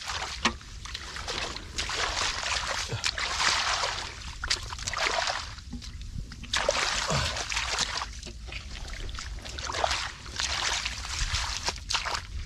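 Hands splashing and sloshing through shallow muddy water while groping in the mud for fish, in irregular bursts with short pauses.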